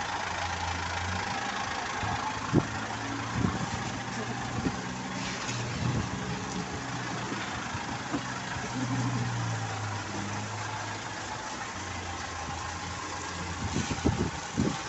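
Truck diesel engine idling steadily, its hum shifting in pitch about halfway through, with a few sharp knocks near the start and a cluster of them near the end.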